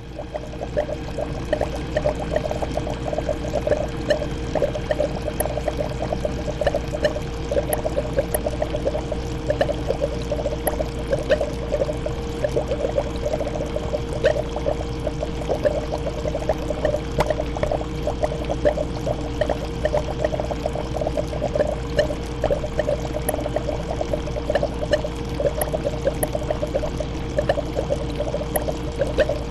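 Aquarium water bubbling and trickling continuously, a dense patter of small splashes over a steady hum.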